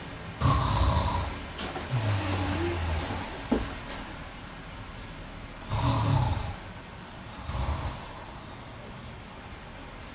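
A man snoring: four heavy, low, rasping snores at irregular intervals, one about every one and a half to three and a half seconds, with a short click between the second and third.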